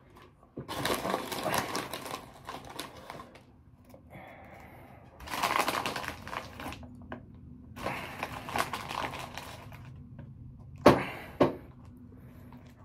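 Close-up crinkly, crunchy noise from potato chips and their bag, in three stretches of a couple of seconds each, followed by two sharp clicks about eleven seconds in.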